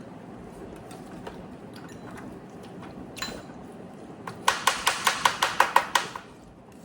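An eating utensil knocking against a dish: a single click, then a quick run of about a dozen sharp, ringing raps about four seconds in, roughly six a second.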